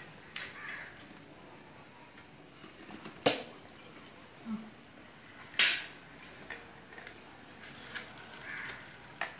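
Stainless steel plates handled by hand while eating: scattered light clinks and scrapes, with two louder clatters about three seconds and five and a half seconds in.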